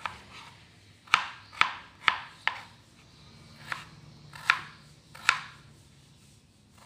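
Kitchen knife cutting through raw potato and tapping down on a plastic cutting board: about eight sharp chopping taps at an uneven pace, with a pause of about a second midway.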